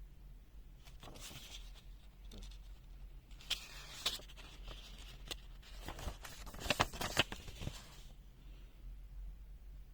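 Handling noise: an irregular run of sharp clicks, taps and rustles between about one and eight seconds in, busiest near the end.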